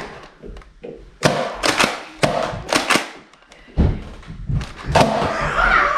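Irregular hollow thunks and thuds, about ten in a few seconds, typical of Nerf blasters firing and foam darts striking.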